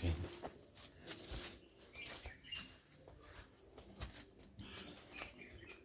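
Small birds chirping in short calls, twice in brief bouts, with scattered clicks and a low thump at the very start.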